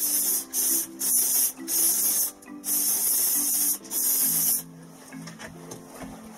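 Aerosol spray-paint can spraying in about six short bursts, each a loud hiss lasting about half a second to a second. The spraying stops a little past halfway through.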